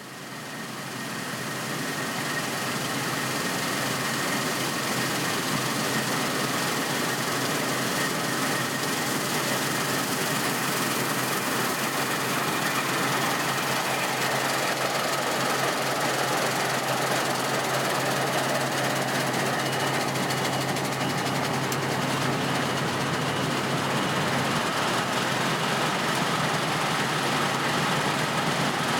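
Claas Lexion 760 combine harvester running steadily, heard from inside the cab as an even engine and machinery noise with a low hum. It fades up over the first couple of seconds, then holds level.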